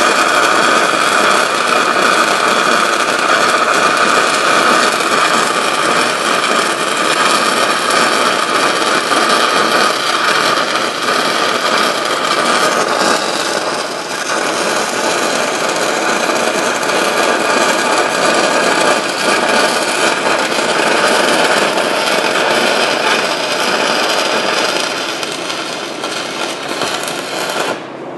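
Shielded metal arc (stick) welding with a 1/8-inch E6010 electrode at about 80 amps, running the root pass on 6-inch schedule 40 steel pipe. A loud, steady hiss and crackle of the arc, cutting off shortly before the end as the arc is broken and the pass finishes.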